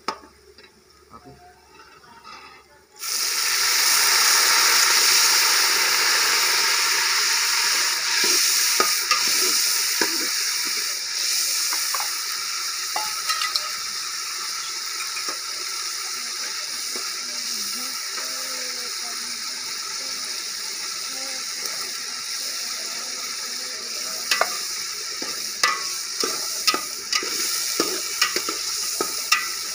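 Sliced onions frying in about a cup of hot oil in a large metal pot, a loud steady sizzle that starts abruptly about three seconds in. Scrapes and clinks of a metal slotted spatula stirring against the pot run through it as the onions turn golden.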